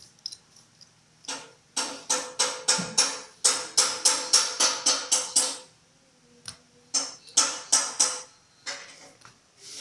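Hammer blows on metal parts in two quick runs of about three to four strikes a second, with a pause between them, each strike leaving a ringing tone.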